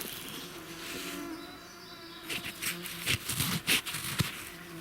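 A fly buzzing close by with a low, wavering drone. About halfway in comes a run of short scrapes and rustles, as of hands or a tool working through soil and leaf litter.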